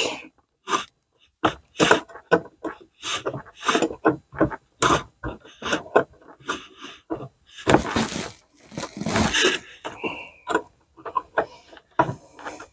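Short metal clicks and scrapes of a wrench tightening a nut onto a wiring terminal stud, coming at irregular spacing, a few a second. A longer scraping rustle comes about eight seconds in.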